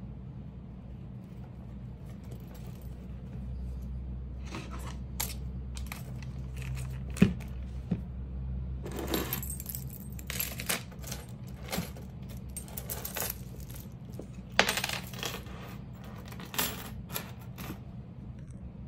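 A bunch of metal keys on a key ring, with a car key fob, jingling and clinking as it is handled and put into a crocheted bag, heard as clusters of sharp metallic clicks and rattles over a steady low hum.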